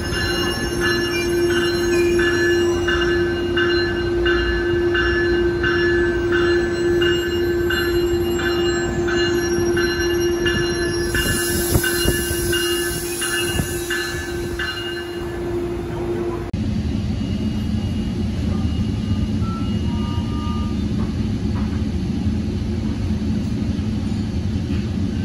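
Tri-Rail bilevel push-pull train moving slowly along a station platform, with a steady whine and a bell-like ding repeating about one and a half times a second. About two-thirds of the way in, this gives way to the steady hum inside a coach, with a few short beeps.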